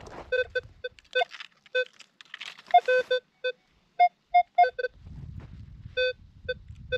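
Minelab Manticore metal detector giving many short beeps as its coil sweeps back and forth over a buried target, mostly at one low pitch with a run of slightly higher beeps in the middle: a strong, repeatable signal.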